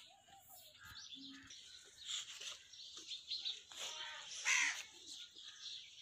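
Birds calling, several short calls scattered through, the loudest about four and a half seconds in.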